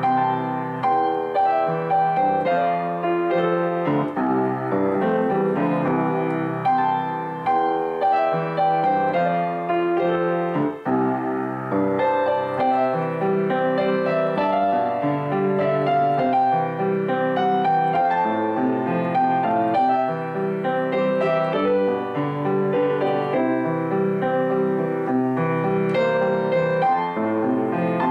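Background piano music, a gentle run of notes played throughout.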